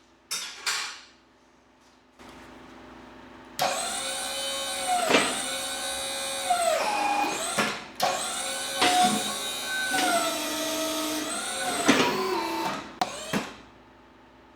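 A 12 V dump-trailer hydraulic power unit, an electric motor driving a hydraulic pump, is switched on in bursts while the ram is worked. Its whine sags and recovers in pitch as the load on the ram changes. There are two short blips about half a second in, then it runs from about three and a half seconds in to near the end, with a brief stop near eight seconds.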